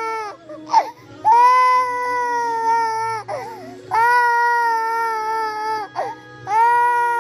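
Toddler crying in long drawn-out wails of about two seconds each, held at a steady pitch that sags slightly at the end. Each wail is broken by a short, sharp gasping breath in between.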